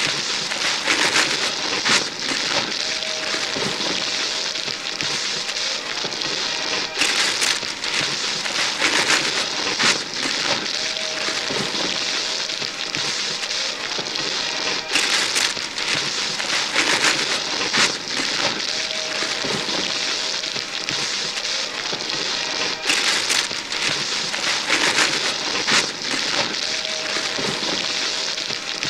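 Wrapping paper and tissue paper being torn and crumpled by several hands at once: continuous rapid ripping and crinkling with frequent sharp tears. The same stretch of tearing repeats about every eight seconds.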